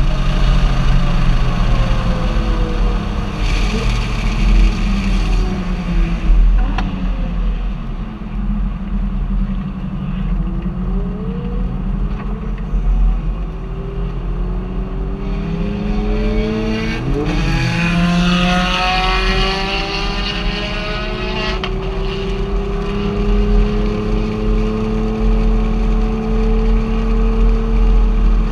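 Vehicle engine and road noise while driving. The engine note falls over the first several seconds and climbs slowly in the last third as the vehicle picks up speed. The engine is misfiring on cylinders 5 and 6, a fault that has put it into limp mode.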